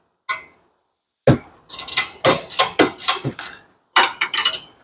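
Steel double box-end wrench clinking on a 19 mm rear brake caliper bracket bolt as it is fitted and worked: a string of sharp metallic clicks, a few a second, each with a short ring.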